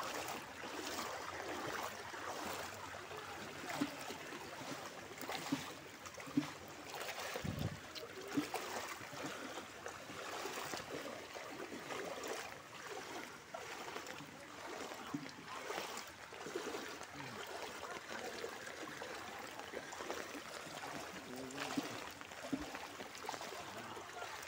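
People wading through shin-deep muddy floodwater, their steps sloshing and splashing at irregular intervals over a steady sound of moving water.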